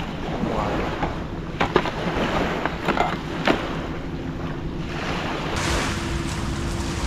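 A motor running steadily under wind and water noise, with a few sharp knocks; about five seconds in, wind on the microphone picks up.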